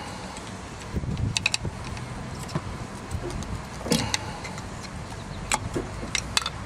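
Metal brake pads and their spring clips clicking and clinking as they are pushed into a disc brake caliper bracket: a handful of light, scattered clicks and knocks.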